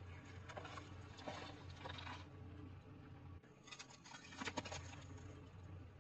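A car tyre rolling slowly over objects on asphalt and crushing them. First comes a run of crunching and cracking as it goes over pineapples, from about half a second to two seconds in. After a cut, a second crackling crunch comes as a star-shaped lantern is flattened, a little past the middle.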